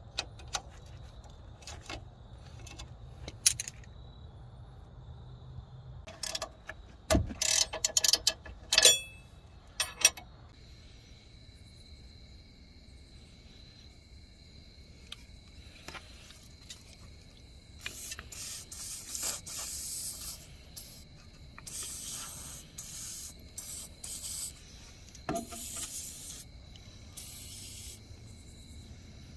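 Hand-tool work on a car's wheel bearing and hub: a few metal clinks and knocks, then, from about halfway, a run of short rasping, hissing strokes like scraping, brushing or spraying.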